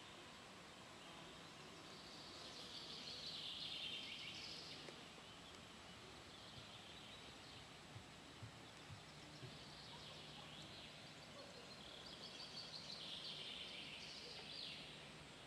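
Quiet lakeside forest ambience with a small songbird singing two long runs of rapid high notes, one starting about two seconds in and one about ten seconds in. A few faint soft knocks fall near the middle.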